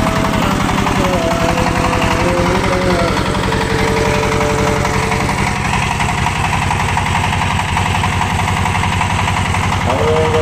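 Single-cylinder diesel engine running steadily after starting, with an even, rapid chugging.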